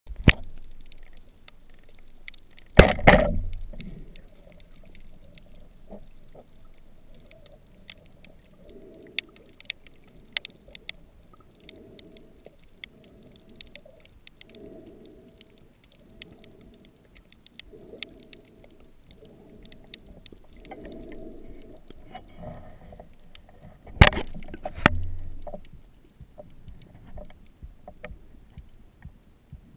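Muffled underwater sound through an action-camera housing: two loud sharp knocks, one about three seconds in and one near the end, with scattered faint clicks and a soft, slow pulsing between them.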